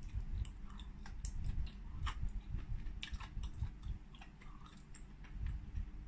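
Close-miked chewing of soft hot-pot food, with many small wet mouth clicks and smacks.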